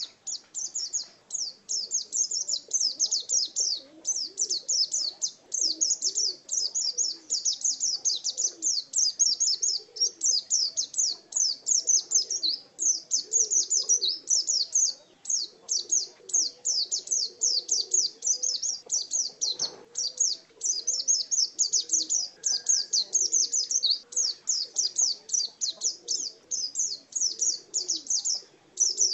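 Pleci dakun white-eye singing a long, unbroken ngalas song: a fast, continuous stream of high-pitched twittering notes with only brief breaks.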